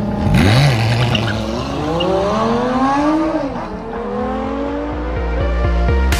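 Lamborghini Gallardo V10 launching hard and accelerating away, its engine pitch climbing through the gears with a drop at a shift about three and a half seconds in, then fading with distance. Background music with a steady beat comes in near the end.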